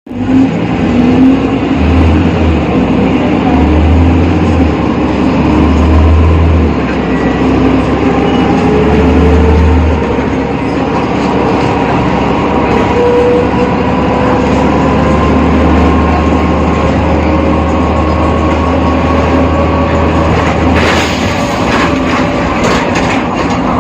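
BredaMenariniBus Avancity Plus city bus with a ZF gearbox running under way: a low throb that pulses about every two seconds and then settles into a steady drone, with a whine that slowly rises in pitch. A few sharp knocks or rattles come near the end.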